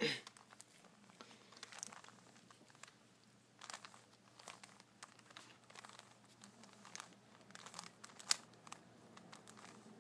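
3x3 Rubik's cube being twisted through an algorithm: faint, irregular clicks and scrapes of the plastic layers turning, with a few sharper clacks.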